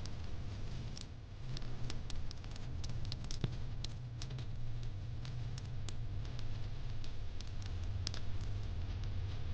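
Fire pit crackling: irregular sharp pops and snaps, several a second, over a steady low rumble of the fire.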